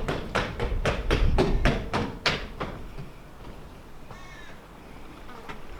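A bird giving a fast run of about ten harsh calls, roughly three a second, that stops under three seconds in, then one fainter call about four seconds in.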